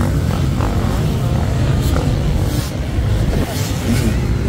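Several motocross bikes' engines running at once as they race over the sand track, with revs rising and falling above a constant low rumble.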